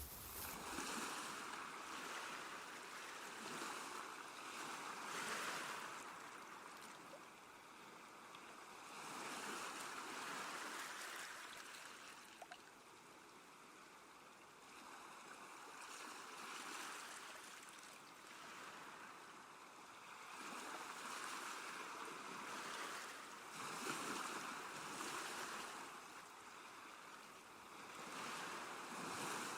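Small waves washing onto a lakeshore: a rushing noise that swells and fades every few seconds.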